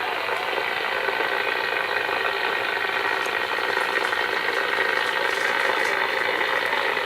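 Stalker 9F DX CB radio's receiver putting out a steady static hiss through its speaker, the noise of an open channel with no signal.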